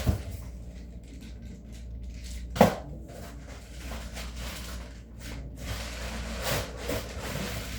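A cardboard shipping box being broken down by hand: scattered rustles and creaks of the cardboard, with one sharp thud about two and a half seconds in. A steady low hum runs underneath.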